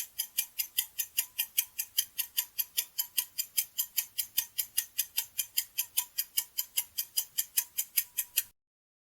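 Ticking-clock countdown timer sound effect: steady, rapid ticks, roughly four to five a second, stopping shortly before the end.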